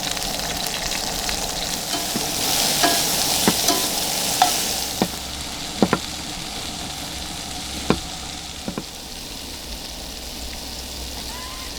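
Eggs sizzling in a frying pan as they are stirred, with a utensil clicking against the pan several times. The sizzle is loudest in the first half and quietens after about five seconds.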